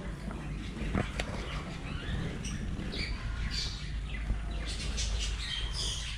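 Caged budgerigars chirping: many short, high calls, busier in the second half, over a low rumble on the microphone.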